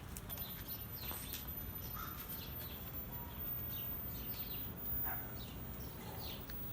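Birds calling outdoors: many short, scattered chirps over faint low background noise.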